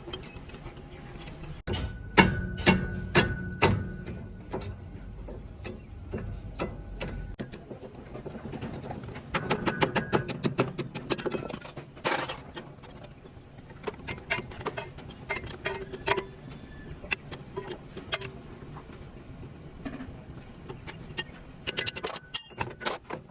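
Irregular metal clinks and knocks from hand tools on truck differential parts, with a cluster of loud, ringing strikes a couple of seconds in.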